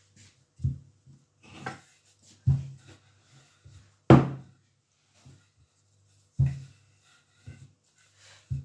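Wooden rolling pin rolling out pastry dough on a floured wooden board, giving about six irregular knocks as it is set down and pushed across the board, the loudest about four seconds in.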